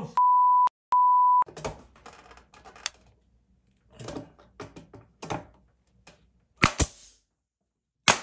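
Two censor bleeps at the start. Then light clatter and rustling as a crown molding piece is handled. Then a finish nailer firing, two quick shots about two-thirds of the way in and another sharp shot right at the end.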